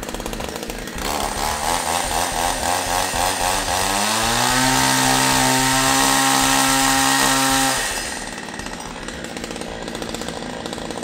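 Two-stroke '5200' chainsaw fitted with a twin-chain concrete groove-cutter bar, running and revving: the engine climbs to full throttle about four seconds in, holds a steady high pitch for a few seconds, then drops back to a rough idle.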